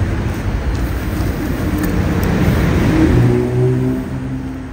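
A motor vehicle's engine running, a low rumble that swells about three seconds in, where a steady engine note comes through.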